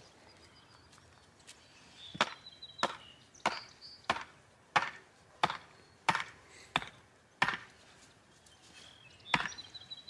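Hammer striking the top of a sharpened white ash stake, driving it into soft, rain-soaked garden soil: nine steady blows about one and a half a second, then one more near the end.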